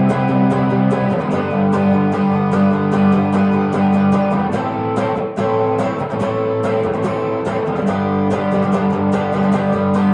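1968 Gibson SG Junior electric guitar with its single P90 pickup, played through an amp: strummed chords left to ring, with a short break about five seconds in.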